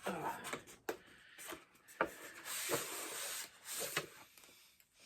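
Packaging rubbing and scraping in hands, with a few light clicks, as a model locomotive is worked out of its tight-fitting box.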